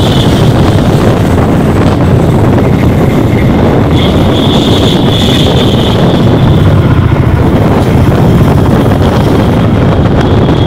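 Steady loud vehicle rumble with wind buffeting the microphone, as if riding through road traffic.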